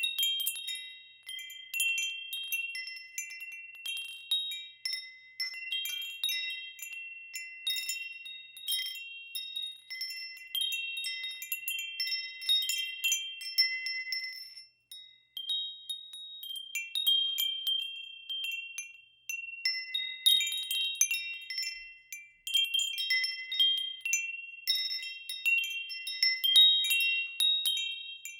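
Wind chimes ringing in the breeze: several high tones struck at irregular moments and overlapping as they ring out, with a brief lull about fifteen seconds in.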